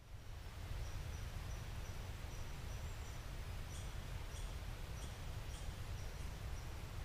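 Lakeside outdoor ambience: a steady low wind rumble on the microphone, with a thin high note repeating about twice a second and, from a few seconds in, sharper chirps at a slightly slower pace.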